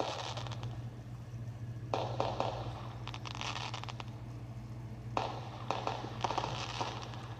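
Small consumer firework crackling in several spurts of rapid little pops, about two, three and five seconds in, over a steady low hum.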